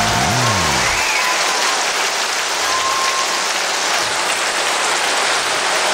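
A steady, even hiss like rain or static, after a low tone swoops up and down and dies away in the first second.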